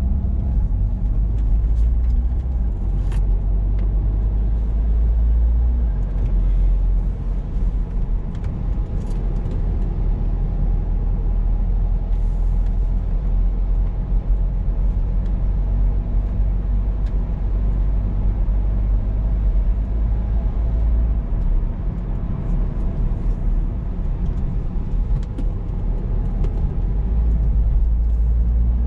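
Car driving along a mountain road: a steady low rumble of engine and tyres, with a few faint light clicks.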